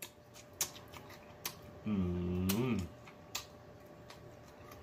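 Close-up eating sounds of a man chewing fried chicken: scattered sharp wet mouth clicks and smacks. About two seconds in comes a single hummed 'mmm', held for about a second, its pitch rising and falling at the end.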